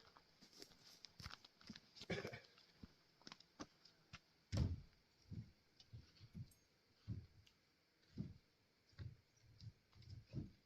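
Quiet scattered clicks and soft dull thuds, about one a second in the second half. The loudest single thud comes about four and a half seconds in.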